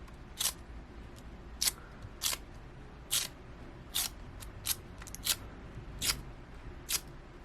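Adhesive dust-removal sticker dabbed again and again on a phone's glass screen, giving a short, sharp sticky crackle each time it lifts off. There are about nine of them at irregular intervals, roughly one a second.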